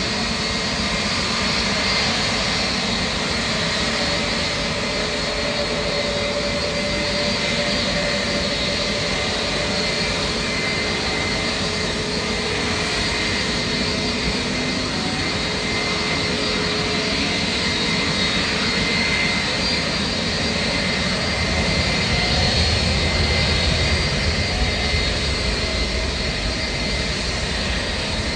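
Jet airliner engines running: a steady high whine over a broad roar, with a deeper rumble swelling for a few seconds about three-quarters of the way through.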